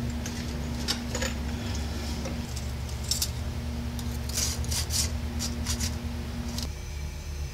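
Light metallic clicks and scrapes of a thin metal shim being handled and tried into the gap between a truck steer-axle spindle and the axle eye, fitting the kingpin clearance shim. A steady low hum runs underneath and partly drops away near the end.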